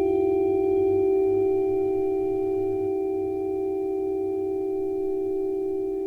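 A single sustained ringing tone sound effect, held at one pitch with a few fainter higher overtones, slowly fading in level.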